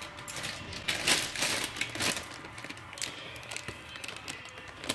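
Irregular clicks, taps and plastic rustles from kitchen handling: ingredient packets and a steel mixer-grinder jar being moved about as dry ingredients go into the batter, with the louder knocks about one and two seconds in. The grinder itself is not running.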